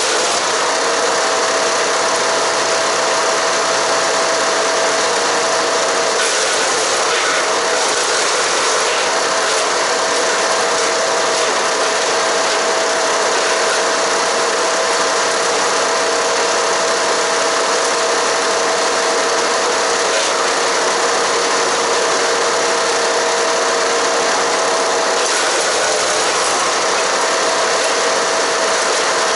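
Haige 15 hp engine-driven wood chipper running steadily and shredding cedar and cypress branches, with a constant engine note over the crunch of chipping. The engine note wavers briefly about six seconds in and again near the end.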